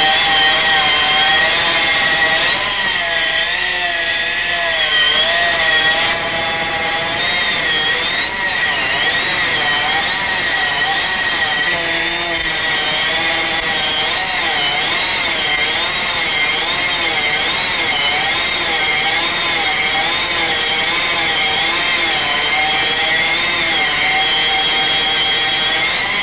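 Stone-cutting machine sawing through a stone slab: a continuous loud grinding with a whine that wavers up and down in pitch as the cut goes on, dropping slightly in level about six seconds in.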